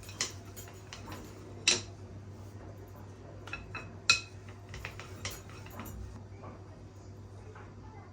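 Dishes and cutlery clinking and knocking, with a few sharper clinks, one briefly ringing, over a steady low hum.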